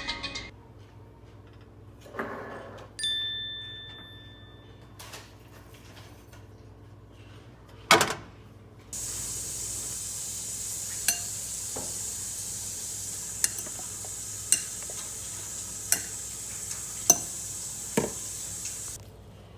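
Clinks and knocks of cookware and utensils, then about halfway through a steady sizzle of food frying in a hot pan starts, with occasional sharp pops, and cuts off near the end.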